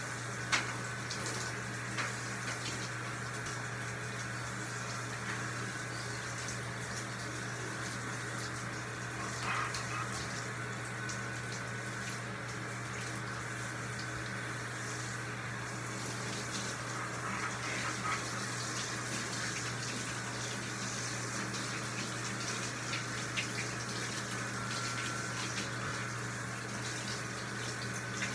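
Water running steadily from a handheld shower sprayer onto a dog's wet coat in a bathtub, spraying and splashing, with a few small knocks, over a steady low hum.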